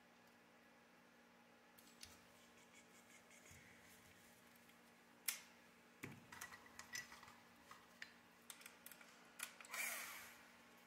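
Light clicks and knocks of plastic and metal RC buggy parts being handled on a workbench: a sharp click about five seconds in, then a run of small clicks and a brief rattle near the end.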